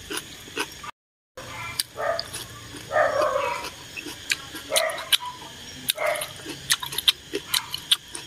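Eating sounds: several wet slurps of glass noodles drawn in with chopsticks and chewing, with many sharp mouth clicks. A half-second dropout to silence about a second in.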